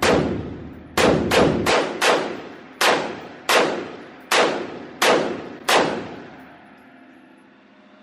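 About ten gunshots from a short AR-style semi-automatic carbine, fired one by one at an uneven pace over about six seconds. Each crack rings off the walls of an indoor range, and the echo then dies away.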